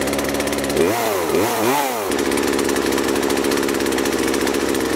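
Craftsman 40cc two-stroke chainsaw engine idling steadily, revved up and back down twice about a second in, then settling back to idle. The idle is being adjusted because the chain creeps at idle without the trigger pressed.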